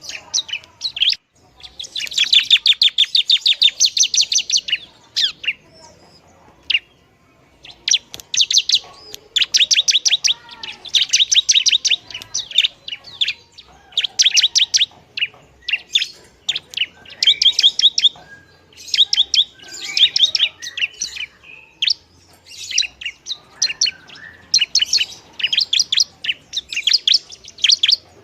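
Bar-winged prinia (ciblek) singing loudly in fast, rattling trains of sharp, high chirps. Each burst lasts a second or more, with short pauses between bursts.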